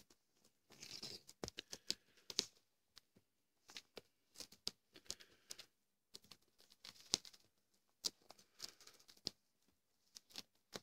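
A cat chewing and clawing at a crumpled sheet of paper: faint, irregular crinkling and tearing with many sharp ticks.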